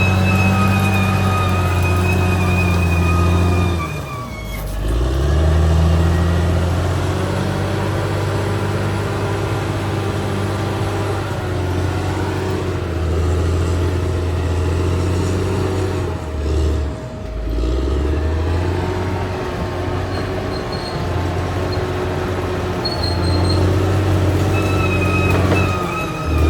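Caterpillar D6R XL bulldozer's diesel engine running hard, dropping in speed and picking back up about four seconds in and again about two-thirds of the way through, with a thin high whine at the start and near the end.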